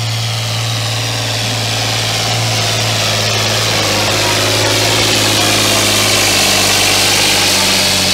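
John Deere farm tractor's diesel engine working hard under load as it drags a weight-transfer sled in a tractor pull. A steady drone with a high whine above it, growing slowly louder as the pull goes on.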